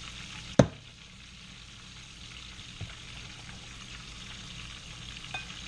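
Hot frying oil sizzling steadily in a pan on the stove, with one sharp knock about half a second in and a couple of faint ticks later.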